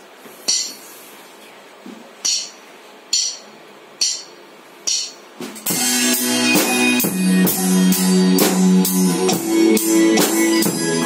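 Drum kit: first a few single cymbal strikes about a second apart, then, about five and a half seconds in, a backing track with guitar comes in and the drums play a steady beat along with it.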